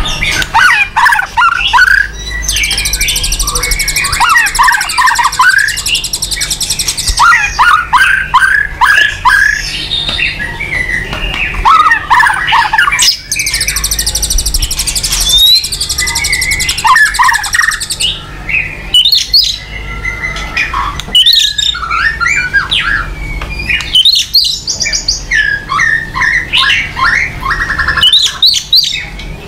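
White-rumped shama and other songbirds singing: fast, varied whistles and chattering phrases. A long, high buzzing trill runs twice, about two seconds in and again around fourteen seconds.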